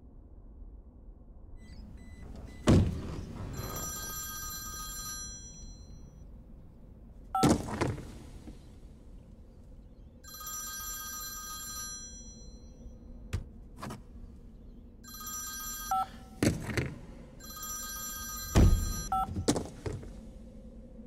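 A telephone ringing, four separate rings of one to two seconds each, with several heavy thuds in between.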